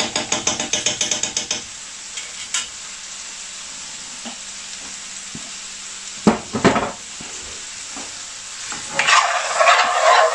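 Chicken and spices frying gently in ghee and oil in an aluminium pan on low heat, a steady soft sizzle. It opens with a quick run of about a dozen taps of a utensil against the pan. About six seconds in, two knocks from the utensil. Near the end the sizzle swells as the pan is stirred with a spatula.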